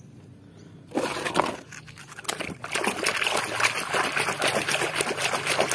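A hand washing a small muddy toy in a tub of muddy water: one splash about a second in, then continuous vigorous sloshing and splashing from a couple of seconds in.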